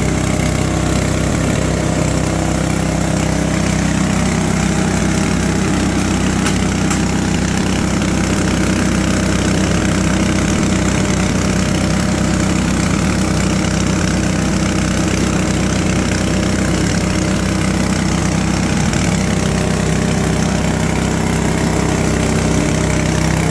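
G-20 shredder-grinder machine running steadily under its engine, with an even, unchanging drone, while grinding goat manure through a 5 mm screen.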